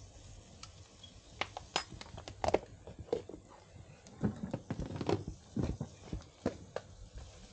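A string of irregular knocks and clicks of things being handled and set down, starting about a second and a half in, loudest around two and a half seconds in and again around five.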